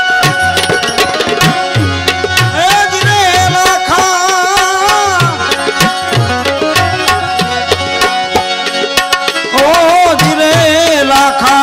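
Santvani devotional music: tabla playing a steady rhythm under held, sustained notes, with a wavering melody line that comes in for a few seconds twice, once in the first half and again near the end.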